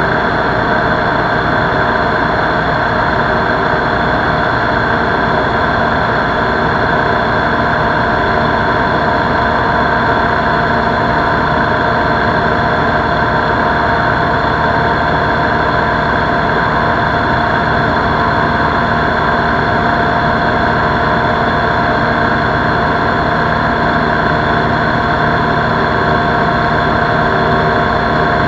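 Lil Buzzard ultralight airplane's engine and propeller running steadily in cruise flight, with wind rushing past the wing-mounted camera.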